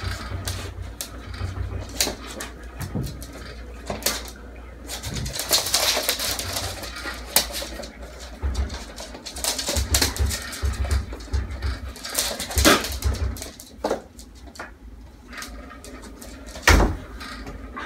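A boxer dog, a small dog and a hairless cat scrambling across a wooden floor after a laser dot: scattered claw clicks and paw thumps, with one sharp knock near the end.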